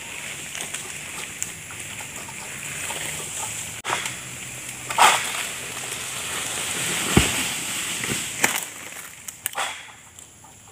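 Long-pole harvesting sickle cutting in the crown of a tall oil palm: fronds rustle and crackle, with sharp snaps about five and eight and a half seconds in. A heavy thud about seven seconds in is the loudest sound.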